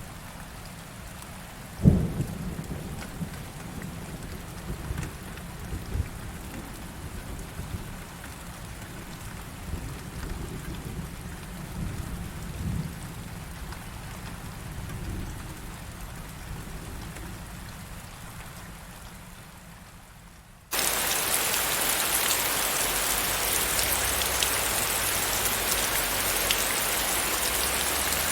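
Thunder rumbling low with a sharp clap about two seconds in and softer rolls after it, dying away. About two-thirds of the way through, heavy pouring rain cuts in abruptly and runs on as a steady hiss.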